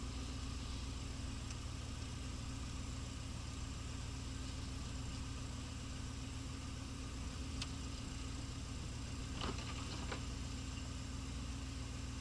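1983 Pontiac Trans Am's 305 small-block V8 running steadily at low, even speed, heard from inside the cabin, with a few light clicks about two-thirds of the way through.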